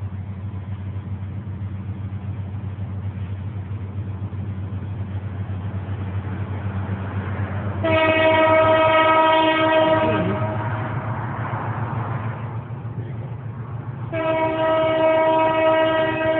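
Freight locomotive's multi-chime air horn sounding two long blasts, the first about halfway through and the second near the end, over a steady low engine drone.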